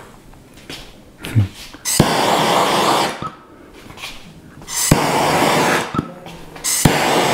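Handheld torch fired in three short bursts of hissing flame to char marshmallows, each burst about a second long and starting with a sharp click; the last runs on past the end.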